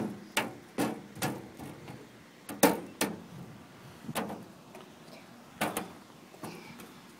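Irregular knocks and thumps of a toddler's hands and feet against a playground slide and climbing structure as he climbs up, about nine in all, the loudest about two and a half seconds in.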